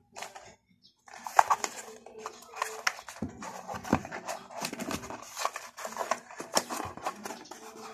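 Cardboard packaging being handled and opened by hand: a rapid run of rustling, scraping and tapping on the box, which starts after a brief pause about a second in.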